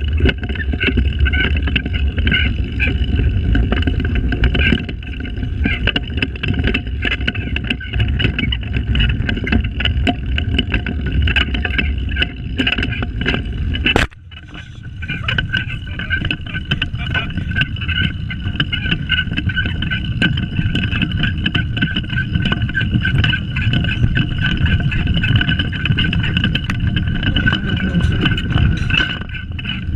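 Pedal go-kart rolling over asphalt: a steady low rumble of the wheels and frame, with a thin, steady high tone over it. A sharp click about halfway through, after which the rumble drops briefly before building again.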